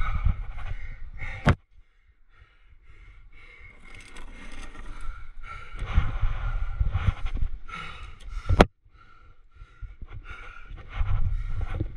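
A crack climber's heavy breathing, rising and falling, with scuffing against the sandstone and wind rumbling on the microphone. Two sharp clicks, about a second and a half in and again past the middle, each cut off into a brief hush.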